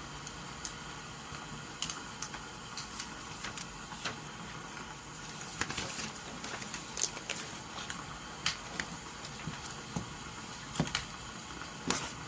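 Wood fire crackling with irregular sharp pops, over a steady hiss of rain.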